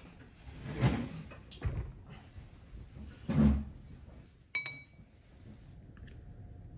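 Knocks and shuffles of a wooden dining chair being pulled out and sat in, then one sharp clink with a short ring, a spoon or dish knocking at the table, about four and a half seconds in.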